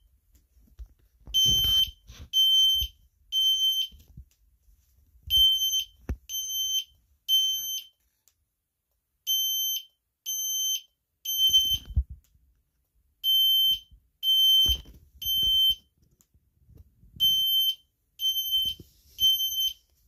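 System Sensor fire alarm horn-strobes sounding the temporal-three evacuation pattern: groups of three high-pitched beeps, about every four seconds, five groups in all. A few faint knocks fall between the groups.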